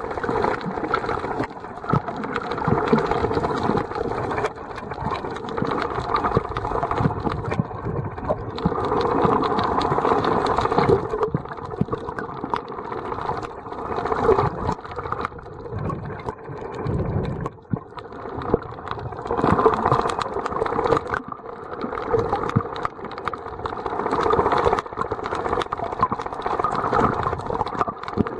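Muffled underwater noise from a submerged camera: water swishing that swells and fades every few seconds, over a faint steady hum.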